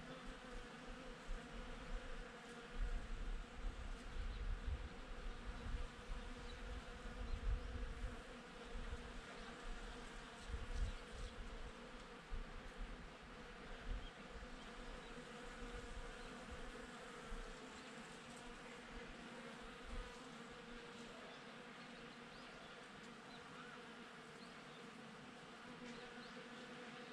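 Honeybees buzzing steadily around blossoms, a continuous hum. Irregular low rumbles come and go through the first half.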